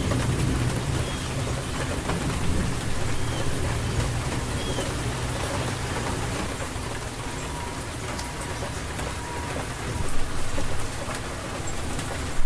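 Steady rain falling on surfaces, with a low rumble of thunder that is strongest in the first few seconds and eases off.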